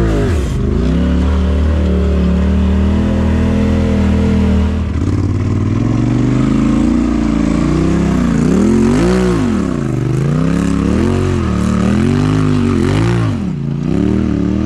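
Side-by-side UTV engine working under load. It runs fairly steadily for the first few seconds, then is revved up and down in repeated swells, about one a second, as the machine crawls up rock ledges.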